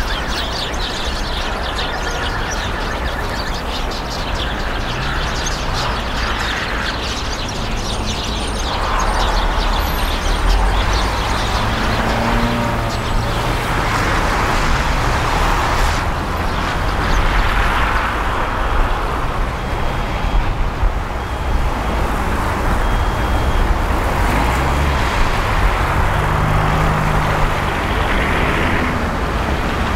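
City road traffic: a steady rumble of cars driving on a snow-covered road, with several vehicles passing one after another every few seconds.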